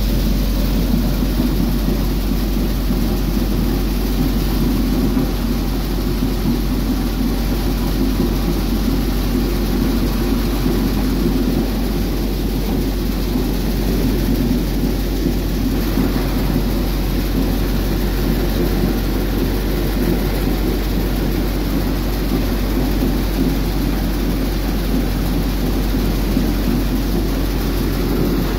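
A tractor-driven multicrop thresher running steadily while threshing chickpeas. The tractor's diesel engine drones under a continuous rushing hiss from the machine, with no let-up or change.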